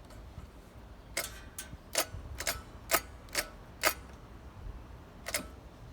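Sharp metallic clicks from a hand tool tightening a fastener on the switch mount: seven, about two a second, then one more after a pause.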